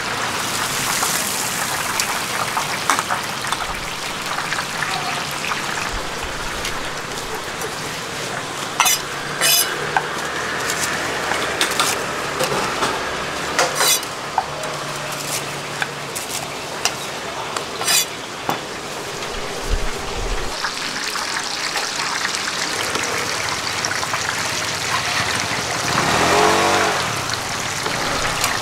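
Oyster fritters and battered fritters sizzling steadily in a large wok of hot deep-frying oil, with a few sharp knocks of a cleaver on a cutting board and metal utensil clinks.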